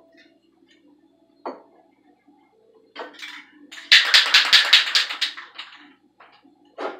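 Aerosol spray-paint can being shaken, its mixing ball rattling fast and evenly for about a second and a half, with a few single clicks and knocks before and after.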